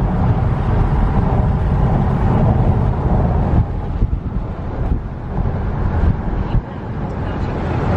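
Chevrolet Camaro convertible driving with the top down: a steady low rumble of road and engine noise mixed with the rush of wind.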